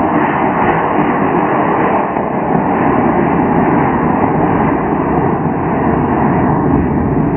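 Rocket motor burning during a long powered climb: a loud, steady rushing noise with no breaks.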